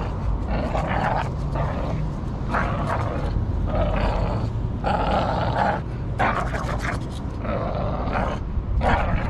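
A Shorty Bull growling through clenched jaws while hanging from and tugging a spring-pole rope toy. The growls come in a string of short, rough sounds, about one a second.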